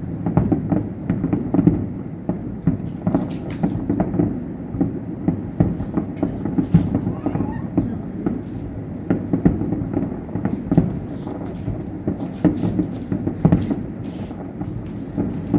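Fireworks display going off: a dense, continuous series of bangs and crackles, many per second.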